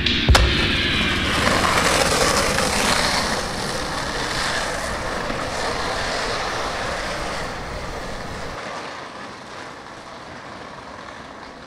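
Skateboard wheels rolling on asphalt, with a sharp clack from the board just after the start, then the rolling noise steadily fading.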